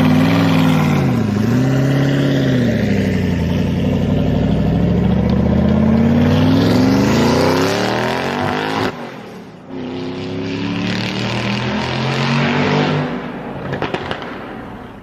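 Race car engine sound effect. The engine note dips twice in the first couple of seconds, then climbs steadily in pitch for several seconds as it accelerates, breaks off sharply about nine seconds in, and comes back as a steadier engine note that fades out at the end.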